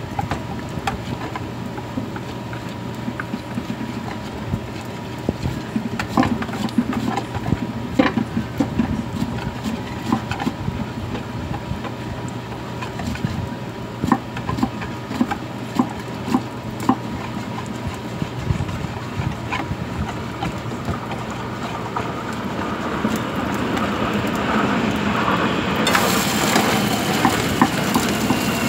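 Korean pancakes (jeon) sizzling in oil in frying pans, with scattered clicks and scrapes of a metal spatula and other utensils against the pans and the batter bowl, over a steady low hum. The sizzle swells louder near the end as a pancake is turned.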